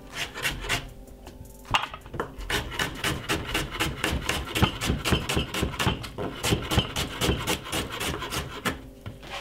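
Kitchen knife slicing a red onion on a wooden chopping board: a few strokes, a short pause, then a steady run of quick knife taps on the board, about four a second, that stops near the end.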